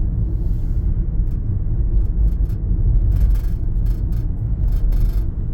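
Steady low rumble of road and engine noise inside the cabin of a car driving along a highway, with faint brief crackles over it.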